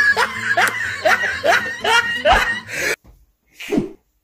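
A man laughing hard in a quick run of "ha-ha" pulses, about three a second, breaking off about three seconds in; one more short burst of laughter comes near the end.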